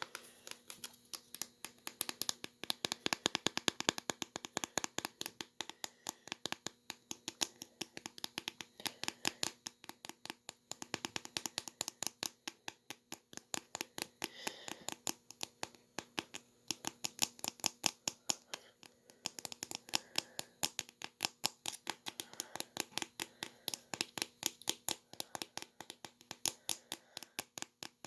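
Fingers typing and tapping on a laptop: a fast, uneven run of sharp clicks, several a second.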